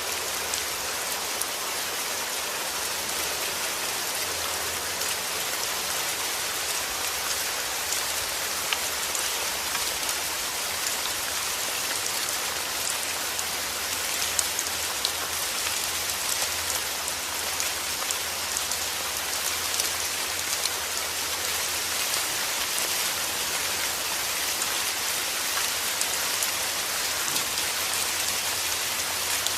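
Steady rain falling: a dense, even hiss scattered with many individual drops ticking.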